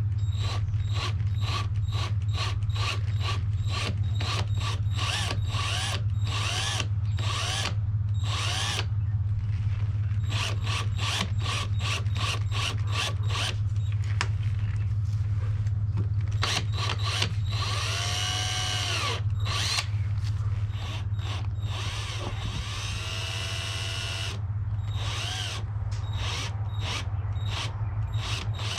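Power drill running in short, repeated bursts, drilling holes through the tour pack for the tail light, over a steady low hum.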